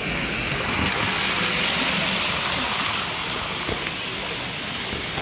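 HO scale model freight train rolling along the track, its wheels on the rails making a steady hiss that grows louder about a second in and eases off after three seconds.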